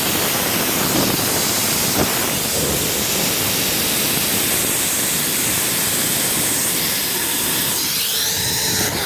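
Zip-line trolley pulleys running fast along the steel cable, with wind rushing over the microphone: a loud, steady, even rush that thins out near the end.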